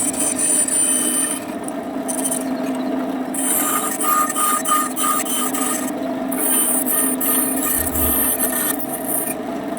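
A power tool working wood: a steady motor hum, with a hissing cutting noise that comes and goes in stretches of a second or two.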